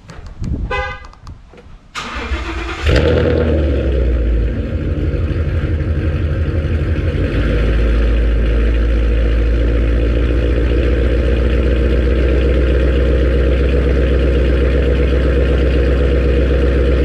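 2015 Mustang GT's 5.0-litre V8 being started: the starter cranks about two seconds in, the engine catches just under a second later with a loud flare, then settles into a steady idle. A few short tones sound before the cranking.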